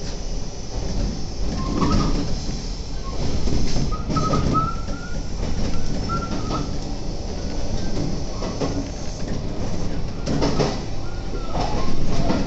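Electric train running on the rails, heard from inside: a steady rumble with short, high wheel squeals on the curve and a run of clicks and knocks over rail joints near the end.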